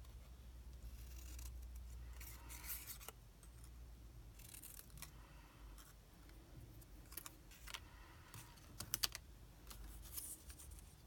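Scissors snipping strips of patterned card stock to shorten them, in several short cuts with paper rustling as the strips are handled, and a few sharp clicks about nine seconds in.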